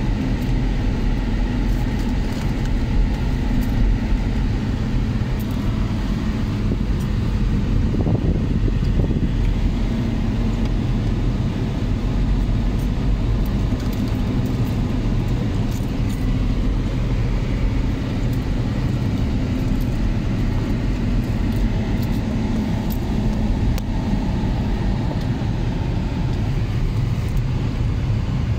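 Steady low rumble of engine and tyre noise inside a car's cabin while driving.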